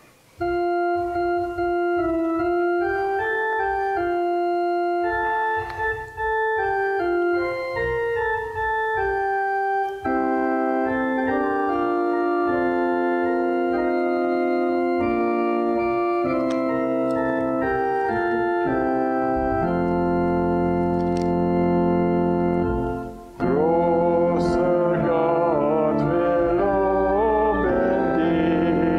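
Church organ playing a hymn introduction in held chords under a melody, the texture thickening with a deeper bass line partway through. About 23 seconds in it pauses briefly, then singing of the hymn starts over the organ.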